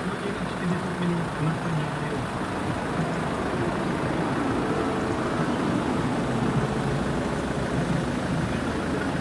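An engine running steadily with a low hum, the level swelling slightly after about three seconds.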